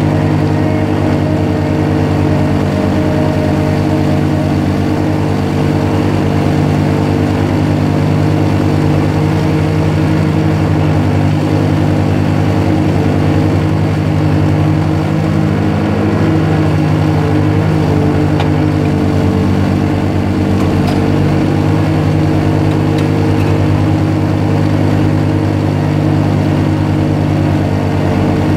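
Zamboni ice resurfacer's engine running steadily as the machine drives, heard close up from on top of the machine as an unbroken, even hum with strong low tones.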